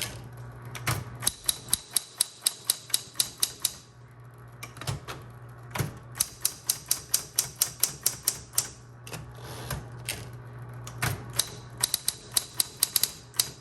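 Smith-Corona Electra 120 electric typewriter typing: rapid runs of sharp key strikes, about six or seven a second, in three bursts with short pauses, over the steady hum of its running motor. It is pretty loud for a typewriter.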